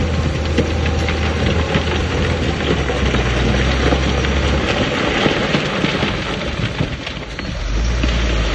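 Heavy diesel earthmoving machinery running, with a dense clatter and crackle of stone and metal over the engine. The engine note fades about halfway through, and a deeper engine note comes in near the end.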